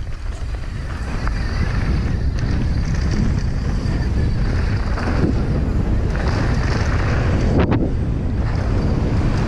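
Wind rushing over the microphone of a mountain biker riding down a dirt trail, with the rumble of tyres on the dirt and gravel. The rush builds over the first couple of seconds as the bike picks up speed, then holds steady.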